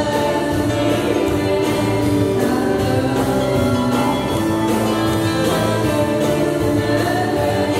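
A woman singing a song into a microphone over musical accompaniment, holding long sustained notes.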